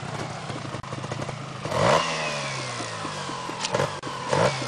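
Off-road motorcycle engine revving on a muddy trail: a steady run, then a sharp rev about two seconds in that falls away slowly, and two short throttle blips near the end.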